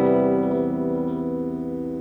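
Electric guitar through a Line 6 POD HD300 amp model, recorded direct: a chord struck just before rings out and slowly fades.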